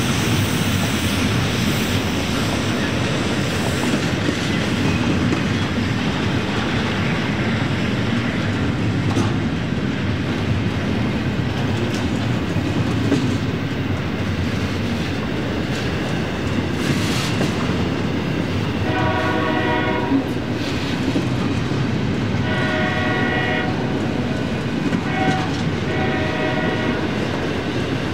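Union Pacific intermodal freight train rolling past with a steady rumble and wheel clatter. In the second half its locomotive horn sounds a long, long, short, long sequence, the standard grade-crossing signal.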